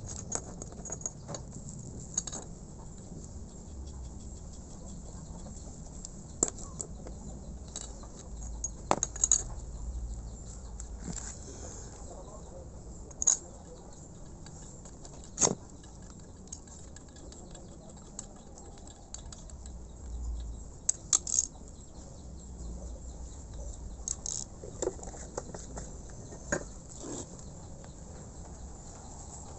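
Irregular light metallic clicks and taps, with a few sharper knocks, as parts and tools are handled while the head of a belt-driven piston air compressor is reassembled over a freshly glued gasket.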